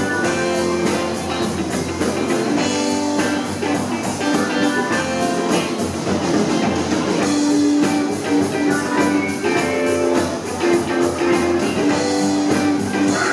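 Live rock band playing: electric guitars over drums and percussion, with keyboard, to a steady beat.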